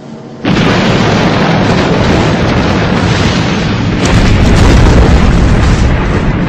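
A large explosion: a sudden loud blast about half a second in, then a long, dense roar of fire and debris that swells louder again around four seconds in.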